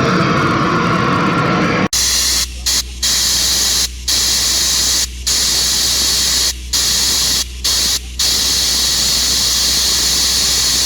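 Loud test noise (a steady hiss) played through a paredão car sound system while it is being tuned, with a steady low rumble underneath. It starts abruptly about two seconds in and cuts out briefly about seven times.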